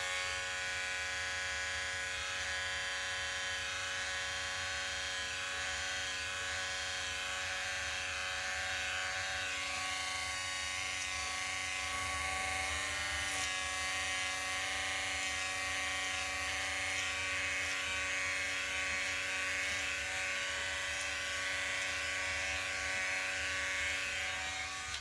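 Conair electric beard trimmer with a number 6 guard running with a steady buzz as it is passed over sideburn hair, switched off at the very end.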